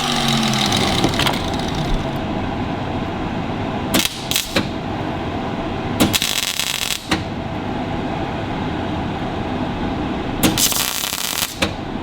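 Welding on a small steel brace, in short bursts: two brief ones about four seconds in, then two of about a second each, over a steady workshop hum. The steel's zinc coating has been ground off so the weld takes.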